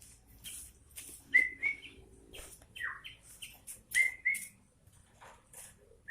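Sooty-headed bulbul (kutilang) chirping and whistling: a run of short sharp chirps and brief whistled notes, one of them sliding down in pitch about three seconds in.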